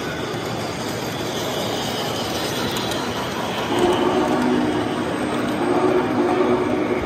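Model trains running on a layout: a steady rolling, rumbling noise of wheels and motors on track. About halfway in it gets louder and a few steady low tones join in.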